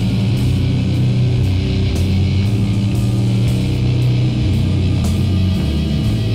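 Rock music with a steady beat.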